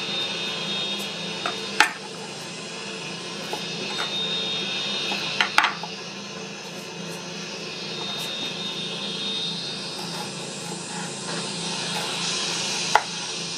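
Chef's knife knocking on a bamboo cutting board while an onion is halved and peeled: a sharp knock about two seconds in, a quick double knock about halfway, and one more near the end. A steady hum and hiss runs underneath.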